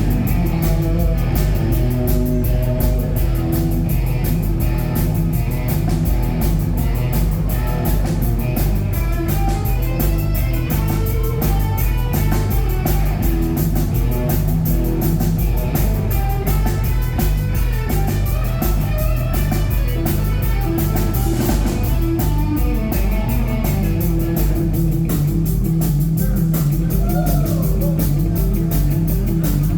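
Rock band playing live: guitar over a drum kit, with a steady beat.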